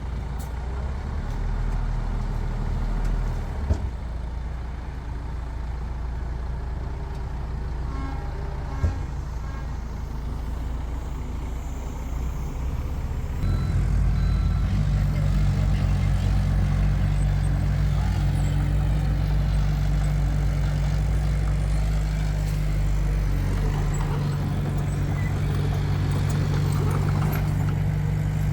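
Heavy diesel engine of a construction machine running steadily. About halfway through it steps up to a louder, even drone. Two sharp knocks come in the first third.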